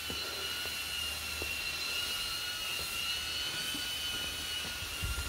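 Drone in flight, its propellers making a steady high-pitched whine that wavers slightly in pitch. There is a brief low thump near the end.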